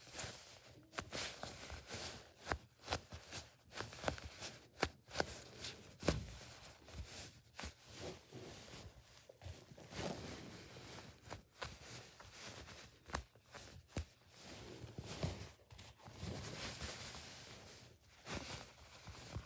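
Hands squeezing and handling foam squishy toys: irregular soft rustles, scratches and sharp little taps as fingers press, rub and turn the foam.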